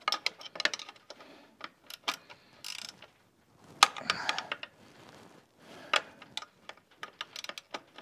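Irregular clicks, knocks and short scrapes of a fishing-rod holder and its mounting bracket being handled and taken apart on a mountain bike frame.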